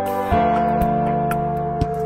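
Background music: held chords that change about a third of a second in, with a light beat about twice a second.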